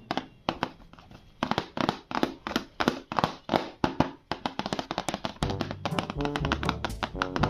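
Background music built on a run of sharp taps and clicks, starting quietly; steady bass notes join in about five seconds in.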